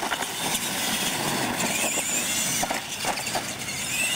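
Radio-controlled monster trucks racing on concrete: the motors whine, rising and falling with the throttle, with a rising whine near the end. Sharp knocks come as the trucks hit and land off the ramps.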